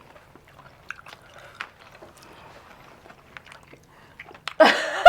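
Close-up chewing and mouth sounds of people eating with their hands: soft smacks and small clicks, then a loud short burst near the end.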